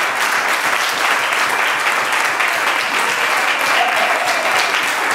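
A group of people applauding steadily, with a faint voice or two calling out over the clapping.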